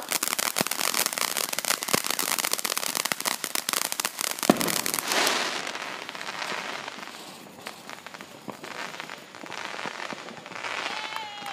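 Ground firework fountain spraying sparks, giving a dense run of rapid pops for about five seconds with one sharper bang about four and a half seconds in. The pops then give way to a hiss and thin out to scattered, fainter pops.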